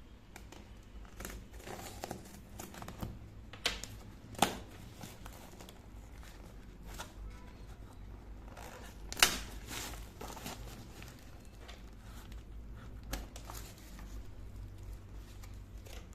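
Packaging being crinkled and torn while small items are unpacked, with a few sharp clicks and taps of small hard pieces being handled, the loudest near 4.5 and 9 seconds in.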